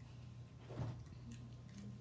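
A plastic juice bottle picked up off the table: a soft knock a little under a second in, then a couple of light clicks, over a steady low hum.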